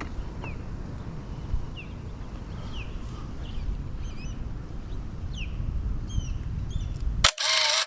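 Wind rumbling on the microphone while small birds chirp, short sweeping calls repeated every second or so. Near the end a brief, loud rushing noise lasts about half a second before the sound cuts off.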